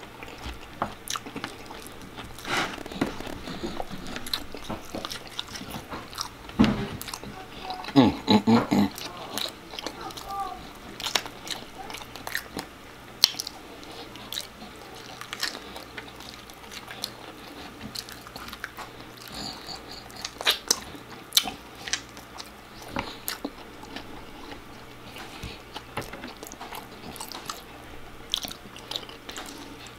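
A person chewing and biting food close to the microphone: open-mouthed eating with many short, sharp crackles scattered throughout. A louder run of bites comes about seven to nine seconds in.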